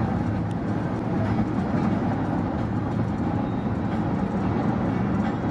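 Steady road and engine noise inside a car cruising on the highway.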